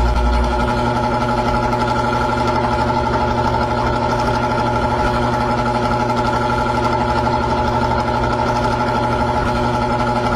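Small engine idling steadily with an even, unchanging hum.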